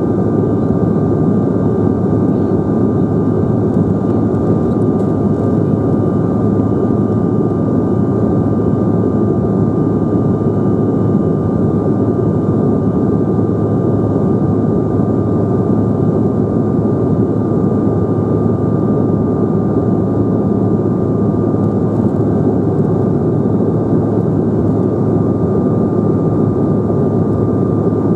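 Cabin noise in a Bombardier CRJ900 regional jet in the climb: a steady roar of airflow and its rear-mounted GE CF34 turbofan engines, with a thin steady whine riding on top.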